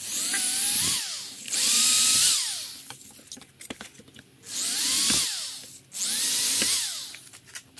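Hand-held power drill with a twist bit boring holes through two stacked layers of particle board, run in four bursts of about a second each, the motor's whine rising as it speeds up and falling as it stops.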